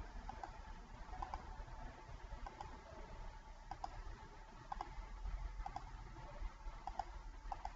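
Faint computer mouse clicks, about one a second and often in quick pairs, over a low steady room hum.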